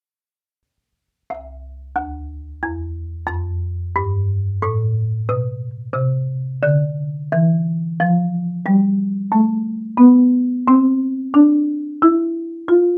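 Marimba playing a slow ascending scale: single mallet strokes about every two-thirds of a second, each note ringing and fading, climbing steadily from the low bars. The notes begin about a second in.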